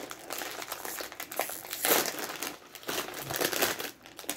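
Crinkling and rustling of a plastic Cheetos bag being handled and opened, loudest about two seconds in.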